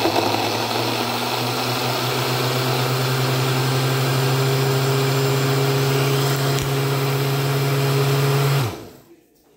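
Countertop blender running steadily as it blends a smoothie, with a steady motor hum under the whirring. Near the end it is switched off and the hum drops in pitch as the motor spins down.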